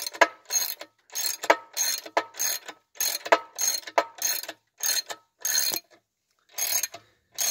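Socket ratchet wrench clicking in repeated short strokes, about two a second, as it turns the forcing screw of a pitman arm puller pressing out a Ford twin I-beam upper eccentric bushing. There is a short pause about six seconds in.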